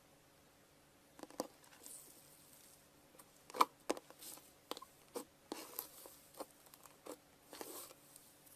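Slime being squeezed and poked by hand, making irregular sharp clicks, pops and short crackling squelches from about a second in.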